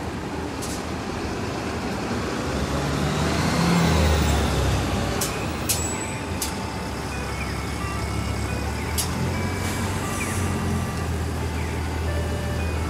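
Heavy street traffic, with a bus pulling away and loudest about four seconds in. From about halfway through, a Japanese audible pedestrian-signal melody of simple electronic tones plays, the signal that the crosswalk light has turned green.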